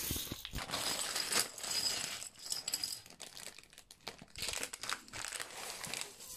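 Thin clear plastic bags of tiny building-block pieces crinkling in uneven bursts as they are handled and emptied, with the small plastic bricks spilling out.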